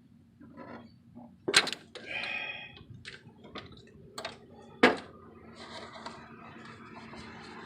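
Metal hand tools clinking and knocking while the reverse light switch is being removed: two sharp knocks and a short ringing clink, with a few lighter ticks between.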